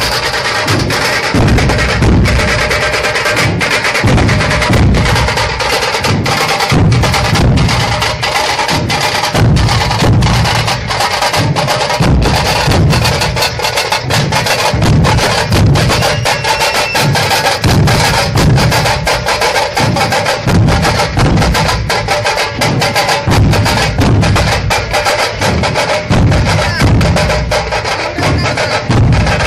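Procession drum troupe of large barrel-shaped dhol drums beaten together in a driving rhythm. Deep beats repeat about twice a second under a dense run of sharp, rapid high strokes.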